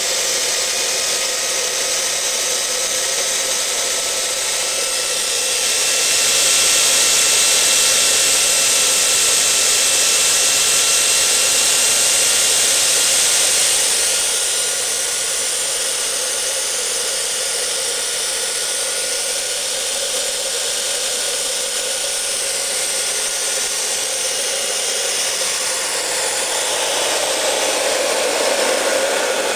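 Homemade turbocharger-based turbojet engine running on propane: a steady rushing roar with a high turbine whine that slowly rises in pitch. About six seconds in it grows louder and hissier, then drops back to its earlier level about fourteen seconds in.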